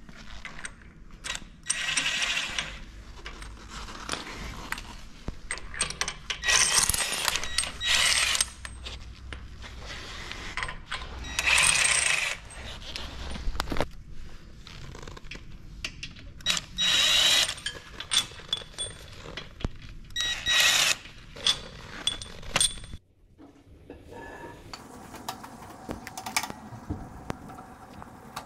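Cordless impact driver running in repeated short bursts of about a second each, undoing steel bolts and pins on a stacker frame, with sharp metal clinks and knocks of bolts and tools between the bursts.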